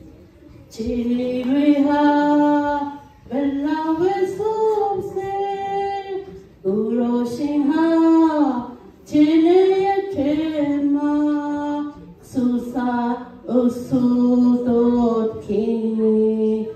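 A young woman singing solo into a microphone, with no accompaniment. Her sustained, melodic phrases last two to three seconds each, with short breaks for breath between them.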